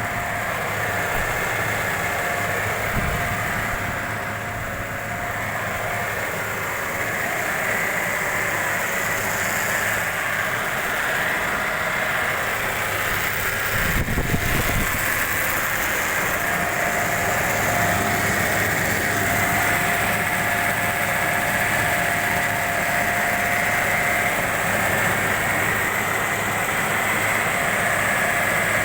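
Car engine idling steadily, with a steady whine above the engine note. A brief low thump comes about halfway through.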